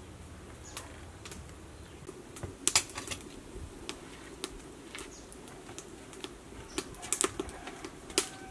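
Metal spoon clinking and scraping against a bowl in light, irregular taps as a sauce is stirred, with a denser run of quick taps near the end.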